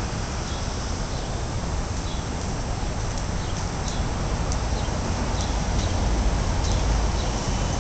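City street ambience: a steady low traffic rumble that grows a little louder about six seconds in, with small birds chirping briefly and repeatedly over it.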